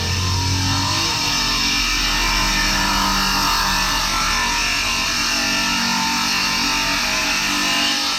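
Woodworking saw machine running and cutting through timber boards: a loud, steady noise.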